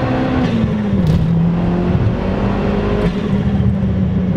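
Turbocharged 1.4-litre four-cylinder of a big-turbo Chevy Sonic heard from the cabin, pulling under throttle. Its steady drone falls in pitch about a second in, edges up again around three seconds, and dips once more near the end. Two short hisses come about one and three seconds in.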